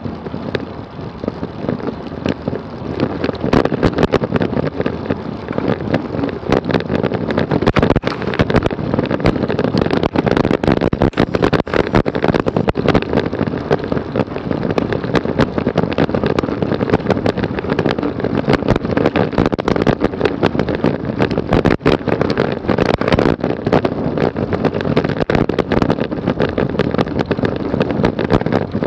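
Wind buffeting a bike-mounted camera's microphone as a road bike rides at speed: a loud, unsteady rushing with constant irregular gusts and crackles.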